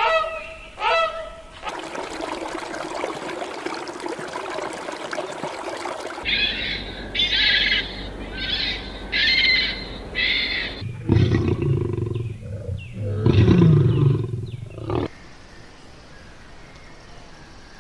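A sequence of separate wild animal sounds. First come a few short pitched bird calls, then a stretch of steady hiss. Next is a run of about six harsh, high bird calls, then loud low calls that slide in pitch, fading to faint outdoor background near the end.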